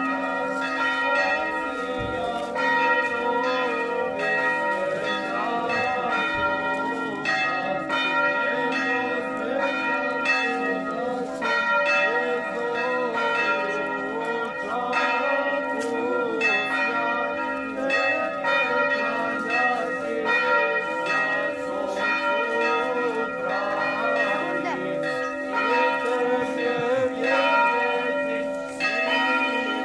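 Church bells ringing continuously, several bells struck in quick succession so that their tones overlap and ring on.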